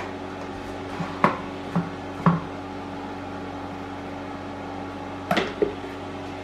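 The plastic lid of a Cecotec Mambo 10070 kitchen robot being unlatched and lifted off its stainless steel jug: a few sharp plastic clicks and knocks in the first couple of seconds, then a close pair about five and a half seconds in, over a steady low hum.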